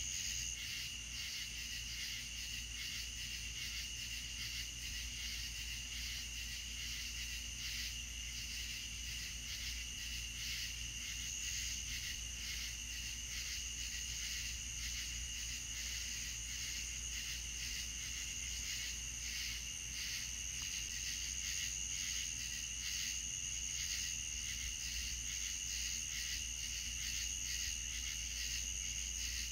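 A chorus of night insects chirping without a break at two high pitches, a fast pulsing trill, over a low steady hum.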